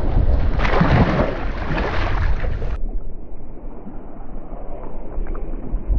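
Wind buffeting the microphone over open-sea water around a kayak, a steady low rumble with a brighter hiss for about two seconds near the start; the sound turns duller abruptly about three seconds in.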